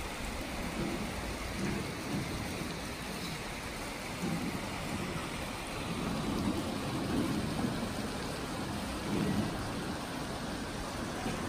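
Steady rushing of Manai Falls pouring into the gorge's river, with a low rumble that swells and fades.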